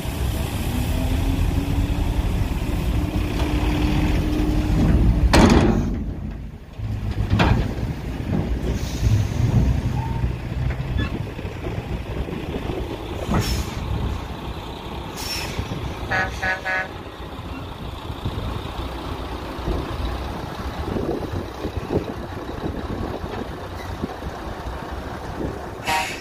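Diesel tractor units running while their end-tipper semi-trailers tip sand, the engine note rising over the first few seconds as it works the tipping hydraulics. Several short sharp bursts of noise, the loudest about five seconds in, and a brief horn toot about sixteen seconds in.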